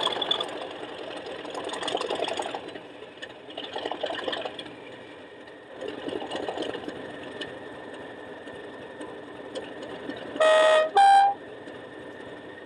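Accurascale Class 37 model's ESU LokSound 5 decoder playing its English Electric diesel engine sound through the model's small speaker, the engine note rising and falling as it works under drive hold while the model stands still. Near the end, a two-tone horn sounds, a short lower note and then a higher one.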